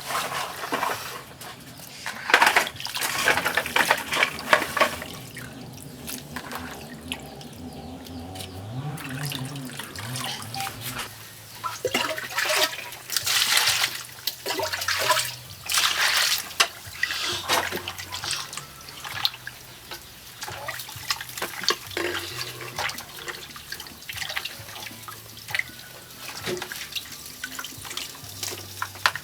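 Water splashing and pouring in irregular bursts.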